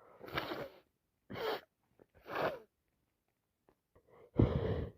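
A woman's sneezing fit: three short, noisy breaths, then a loud, abrupt sneeze about four and a half seconds in. She puts the fit down to allergies plus a cold.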